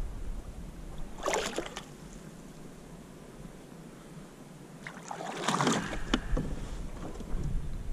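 Water splashing and sloshing beside a fishing kayak, with a short splash about a second in and a louder splash and rustle about five seconds in. A few light clicks of gear being handled follow.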